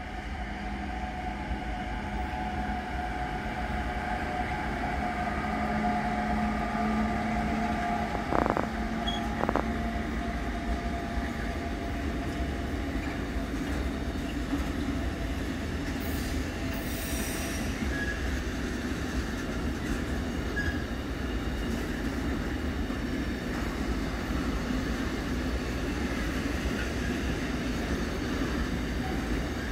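SBB Cargo Re 482 electric locomotive and its intermodal container train rolling past, a steady rumble of wagon wheels on the rails. A steady whine runs through the first ten seconds or so, and two sharp knocks come about eight and nine seconds in.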